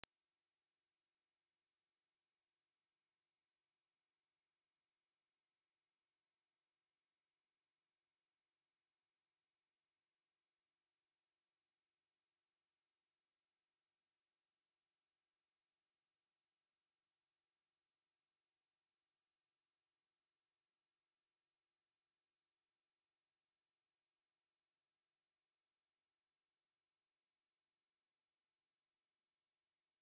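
A steady, unbroken 6492 Hz sine-wave test tone: a single high-pitched whistle at constant pitch and level, used to check speakers or headphones.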